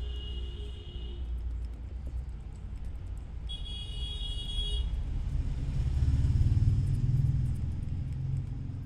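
Road traffic: a low rumble that swells as a vehicle passes, with two horn honks, each a bit over a second long, in the first half.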